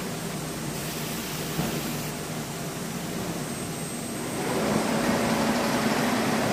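Plastic bag making machine running as it feeds out black plastic film: a steady mechanical hum and whir with a faint tone over it, dipping a little in the middle and growing louder again about four and a half seconds in.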